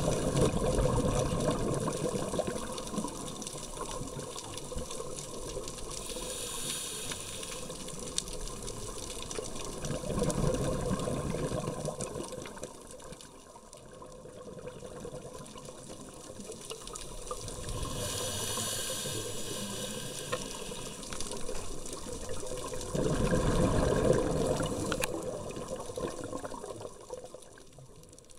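Scuba regulator breathing underwater: slow breaths in which each inhalation is a high hiss and each exhalation a low bubbling rumble of released air, with three exhalations and two inhalations spread across the stretch.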